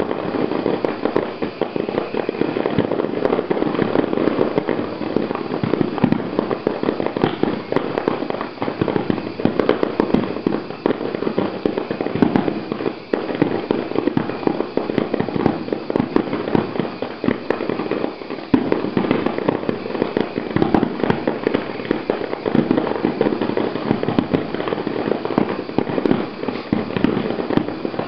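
Fireworks display finale: a dense, near-continuous barrage of aerial shell bursts, many overlapping bangs with hardly a break.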